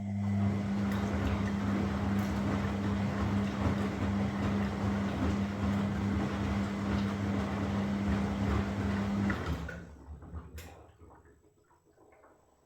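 Washing machine drum turning with a steady motor hum over a rushing, churning noise. About nine seconds in the motor cuts off and the sound dies away over the next few seconds, with a single sharp click as it winds down.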